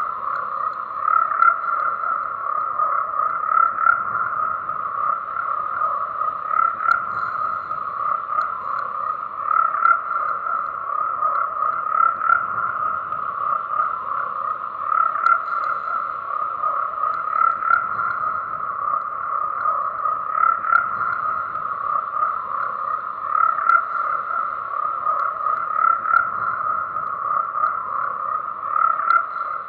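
Chorus of many frogs calling continuously in a dense, steady drone pitched around 1 kHz, with a weaker lower band beneath. Louder individual calls stand out every second or two.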